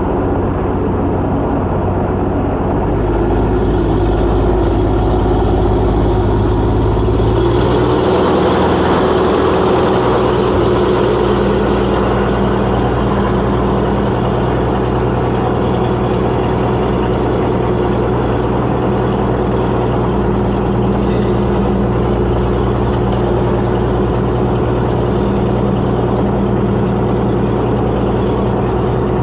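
The 180 hp engine and rear pusher propeller of a Velocity S-FG, heard inside the cockpit, rising in power about three seconds in and again about seven seconds in, then running steady at high power on the takeoff roll.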